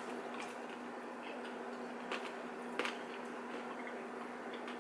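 Quiet eating of dumplings: two small clicks over a steady low hum.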